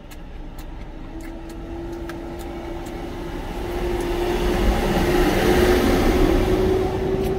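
A large motor vehicle going past, its engine hum and rumble building over several seconds to a peak about five to six seconds in, then easing slightly. The hum rises slightly in pitch as it nears.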